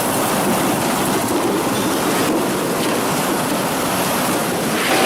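Factory processing machinery running: a steady, dense mechanical noise.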